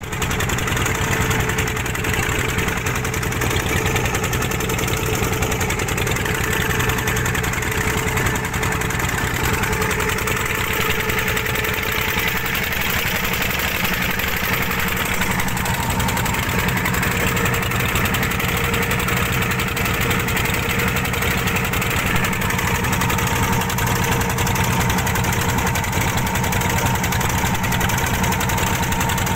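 Wooden fishing boat's engine running steadily as the boat travels at sea, a fast even chugging under a rush of water along the hull.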